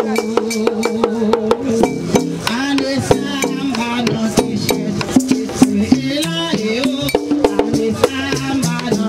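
Haitian Vodou ceremonial music: voices singing together over drums and rattles beating a fast, steady rhythm.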